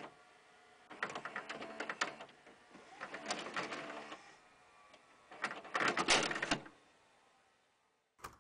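Four bursts of rapid mechanical clicking, each about a second long and roughly two seconds apart, with a single click near the end.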